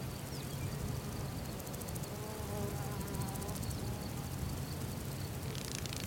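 Insects buzzing, with a fly-like drone passing about two seconds in and rapid high ticking, over a steady low hum.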